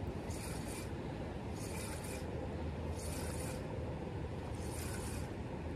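Spinning reel cranked in short spurts, a raspy whir of about half a second repeating roughly every one and a half seconds, as a lure is retrieved in pulses. A steady low rush runs underneath.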